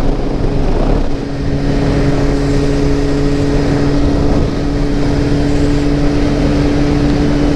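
Motorcycle engine running at a steady cruising speed under wind and road noise, with a brief drop in engine note about a second in.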